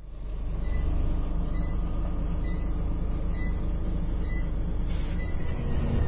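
Steady city street traffic noise, heavy in the low end, with a short high electronic beep repeating about once a second.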